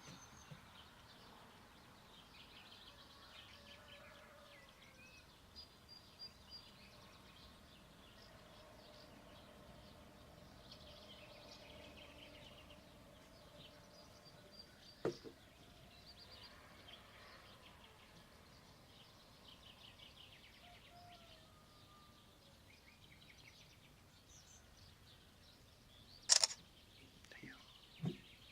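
Faint dawn chorus of small birds: scattered high chirps and trills over a low hiss. A sharp click comes about halfway through and a louder one near the end.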